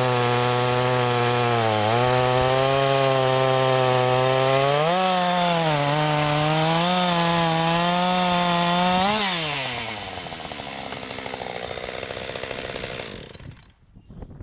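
Husqvarna AutoTune two-stroke chainsaw at full throttle, cutting slowly through a log with a blunt chain. The engine pitch sags and recovers as it works in the cut. About nine seconds in the revs rise briefly as the saw comes free, then fall away, and the saw runs quieter until the sound drops off near the end.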